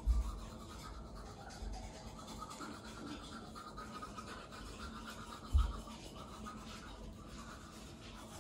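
Faint scrubbing of a toothbrush on teeth, with one low thump about five and a half seconds in.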